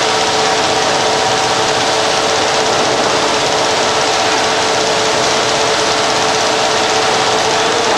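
GM-550 straight-line carton packing machine running at speed: a steady, dense mechanical clatter with a constant hum underneath.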